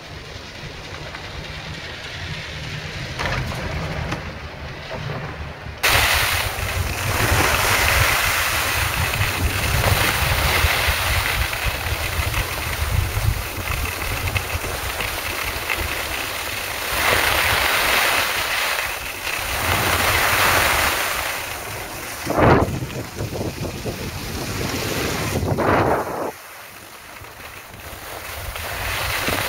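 Wind rushing over the microphone and skis hissing over snow during a downhill run. The noise starts abruptly about six seconds in, after a quieter steady stretch. It drops off sharply a few seconds before the end, then builds again.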